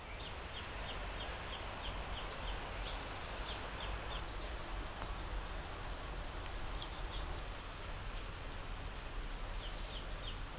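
Insects trilling in one high, unbroken note, with short chirps repeating about once a second beneath it. The sound drops slightly in level about four seconds in.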